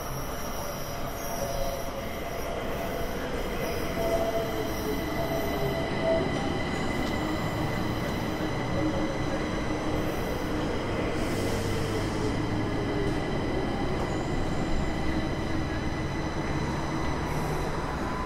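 Yellow Berlin U-Bahn train running across the Oberbaum Bridge: a steady rumble of wheels on rails, with a thin high whine and a lower tone that slides slowly down in pitch over several seconds.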